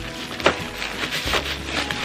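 Plastic bubble wrap rustling and crinkling as it is handled and pushed aside in a cardboard box, with one sharper tap about half a second in. Quiet background music runs underneath.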